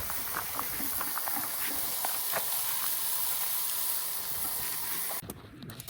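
Food sizzling in a frying pan: a steady hiss with small pops and crackles, which cuts off suddenly about five seconds in.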